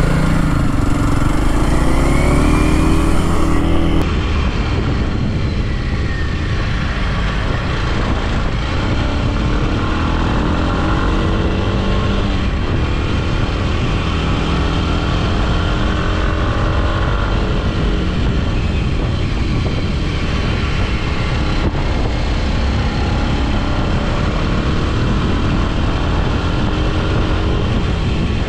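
Kawasaki KLX230 single-cylinder four-stroke engine running under way, its pitch climbing again and again as it accelerates through the gears. Steady road and wind noise sits under it.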